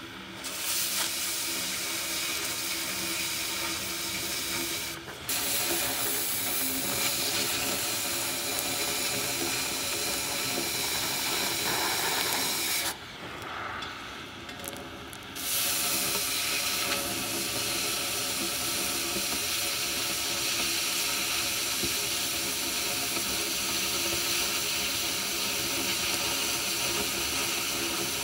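Oxy-fuel cutting torch cutting through the wall of a 4-inch steel pipe: a steady hiss from the flame and cutting jet. The hiss drops away briefly about five seconds in, and again for about two seconds in the middle.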